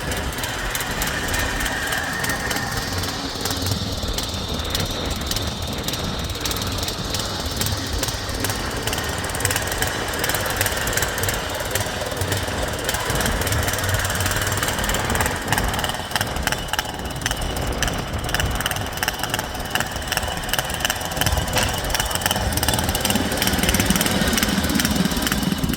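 Small engine of a converted Craftsman garden tractor running steadily while the six-wheel machine is driven along a trail, a dense fast-pulsing clatter.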